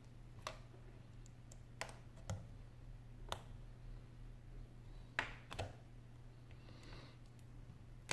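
Faint, scattered clicks and taps of small plastic and metal phone parts being handled: an iPhone 6 battery set down and pressed into the phone's rear housing, about six light clicks in all. A steady low hum runs underneath.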